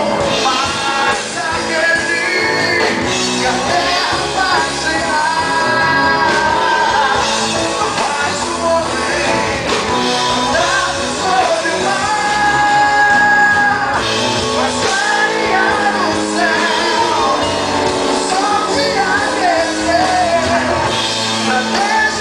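Live Christian rock band playing a song: electric guitars, drums and keyboard, with a sung or lead melody line bending over the full band.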